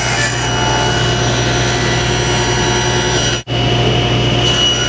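Table saw running with a steady hum while a board is ripped through the blade, then the saw running again after a momentary break about three and a half seconds in.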